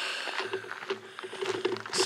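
Hikers' footsteps on a stony path, with scattered short crunches as they walk.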